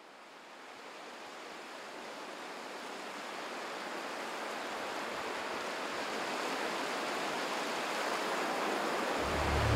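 Steady rushing noise like ocean surf, fading in and swelling slowly louder, with music starting near the end.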